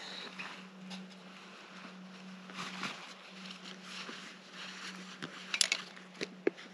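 Soft rustling of clothing and brush as binoculars and a compound bow are handled, with a quick cluster of sharp clicks about five and a half seconds in and a couple of knocks just after, over a faint steady low hum.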